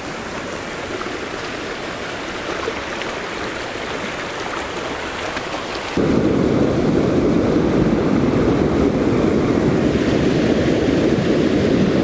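Rhenass River rushing over rocks in fast rapids, a steady roar of water. About six seconds in it switches abruptly to a louder, deeper rush where the river runs in heavier white water.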